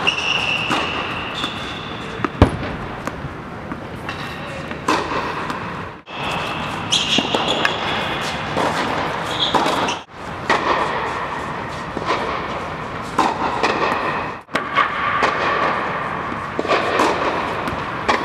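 Tennis balls being struck with a racket on serves, sharp single hits, the loudest about two and a half seconds in, over a steady background of indoor court noise. The sound cuts out briefly three times.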